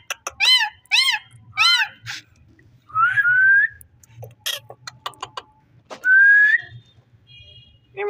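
Indian ringneck parakeet calling and whistling: three short arched chirps in the first two seconds, then a rising whistle about three seconds in and another about six seconds in, with a few sharp clicks between them.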